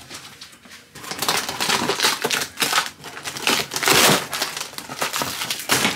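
Cardboard moving box being handled and its packing tape torn open: a run of irregular scraping, crinkling and ripping noises, loudest about four seconds in.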